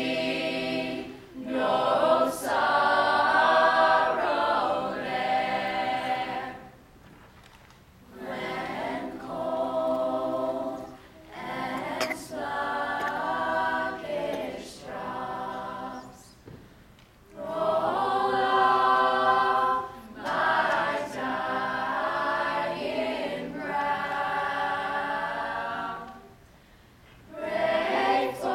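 Mixed-voice a cappella group singing in harmony, unaccompanied. The phrases are separated by three short pauses of a second or two each.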